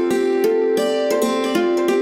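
A Firefox OS ringtone playing: a short melody of sharply starting, ringing notes, several a second, looping over and over.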